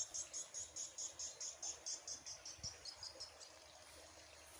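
Insect chirping in a steady rhythm of short, high chirps, about five a second, stopping about three and a half seconds in.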